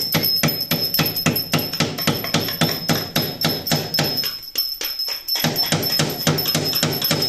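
Background music with a fast, steady beat of about four strokes a second; the low part drops out for about a second after four seconds, then comes back.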